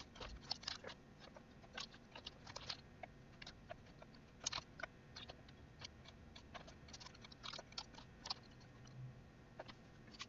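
Faint, irregular clicks of a computer keyboard and mouse, a few at a time with short gaps between.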